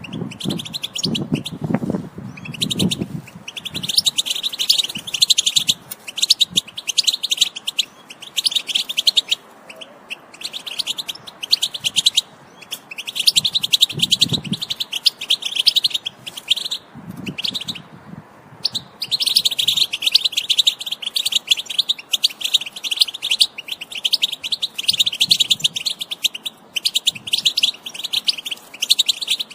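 European goldfinch singing: rapid, high twittering phrases a few seconds long with short pauses between them. Near the end it runs in one long unbroken stretch. This is a song recording meant to stir other caged goldfinches into singing. A few faint low rumbles come under it near the start and in the middle.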